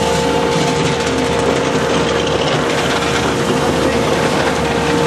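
Pump running with a steady hum while water gushes from a large suction hose's metal outlet into a deck tank, during a live-bait well change on a purse seiner.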